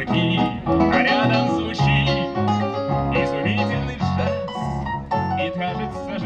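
Live instrumental passage on acoustic guitar and keyboard, with the keyboard's piano sound to the fore, played through the stage's loudspeakers.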